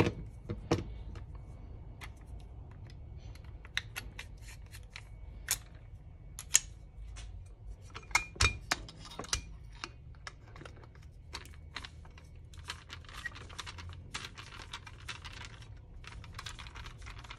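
Small metal clicks and clinks as screws are worked out of the choke housing of an Autolite 2100 carburetor with a screwdriver and the part is handled on the bench. A run of fine, fast clicking comes in the last few seconds.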